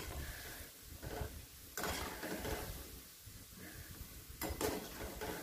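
Gulab jamun frying in hot oil in a steel kadai with a steady sizzle, while a metal slotted spoon stirs them and scrapes against the pan, with a couple of sharper metal strokes about two seconds in and near the end.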